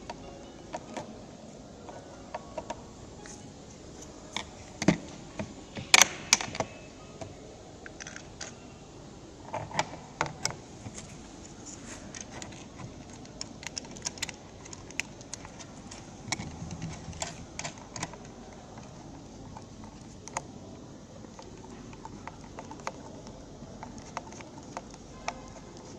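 Irregular light clicks and taps of a small hand tool and metal fittings against a skylight frame while the strut's mounting bracket is worked on, with a few louder knocks about five to six seconds in.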